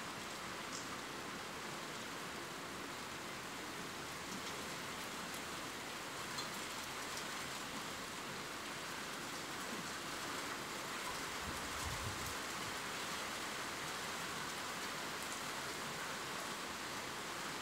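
Steady rain falling, with scattered small drop ticks. A brief low rumble comes about twelve seconds in.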